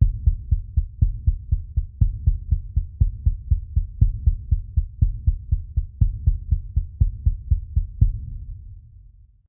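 Horror-style heartbeat sound effect: a rapid, steady run of low double thumps over a low drone, fading out near the end.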